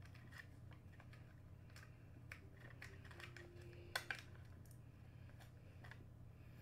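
Faint clicks and taps of a screwdriver and hands working on an airsoft Tavor rifle's body, with two sharper clicks close together about four seconds in, over a low steady hum.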